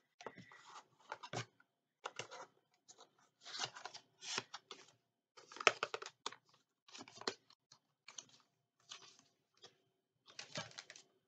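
Packaging rustling and crinkling in short bursts, roughly one a second, as items are handled and unwrapped from a box.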